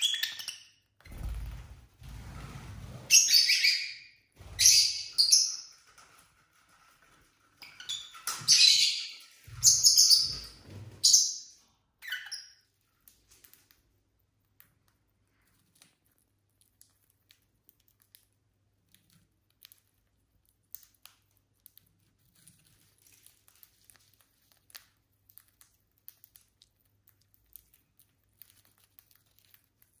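Lovebirds chirping in loud, shrill bursts, with a few low thumps among them, for about the first twelve seconds. After that the calls stop and only faint scattered clicks are left.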